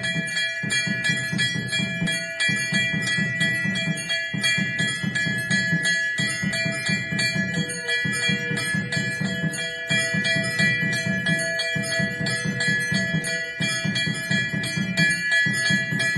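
Brass temple bells rung rapidly and continuously, a dense clanging ring, over a low pulsing rumble that breaks about every two seconds.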